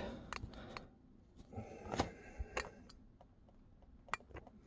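Faint handling noise of an old paper comic book: light rustling and a few sharp taps as it is laid flat on a table and picked up again.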